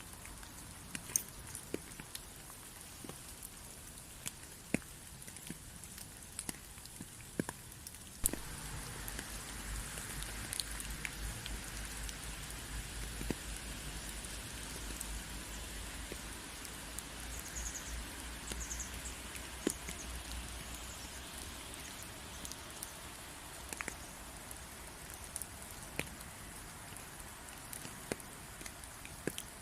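Steady rain falling, with scattered individual drops ticking sharply on a surface. About eight seconds in the rain grows louder and a low rumble joins it, easing off again some fifteen seconds later.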